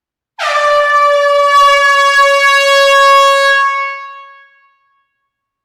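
Air horn sounding one long, steady blast of about four seconds, starting abruptly and fading away at the end.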